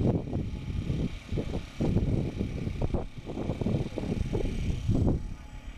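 Radio-controlled model airplane's motor droning faintly aloft, under loud gusts of wind rumbling on the microphone; the drone fades near the end.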